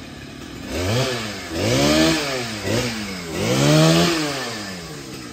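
Large two-stroke chainsaw revved in repeated throttle blips, its pitch climbing and falling back each time, with the longest and loudest rev near the end. It drops back toward idle between blips.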